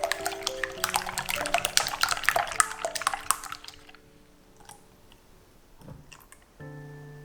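Background music of held notes over rapid clicking and pattering from kitchen work, which dies away after about three and a half seconds, leaving a few isolated clicks before the music swells again near the end.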